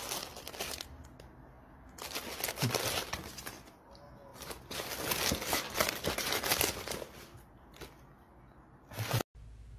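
Crinkling and rustling of wrapped tea sachets and a cardboard tea box as a cat shifts around inside it, in several bursts.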